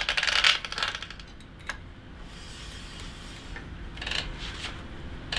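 A new bicycle chain being handled and worked: its links rattle and rub in a quick run of fine clicks at the start, with another short rattle about four seconds in.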